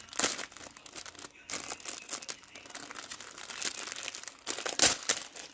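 Clear cellophane bag crinkling and rustling as hands open it and slide a paper seed packet out, with a sharper, louder crackle near the end.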